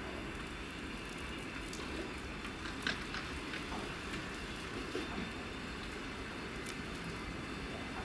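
Passenger coaches rolling slowly past the platform: a steady rumble and hiss, with a few sharp clicks of wheels over rail joints.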